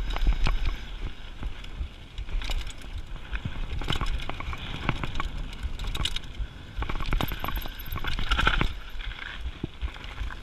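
Mountain bike rolling fast down a loose gravel dirt trail: tyres crunching over stones and the bike rattling and clicking over bumps, over a steady low rumble of rushing air.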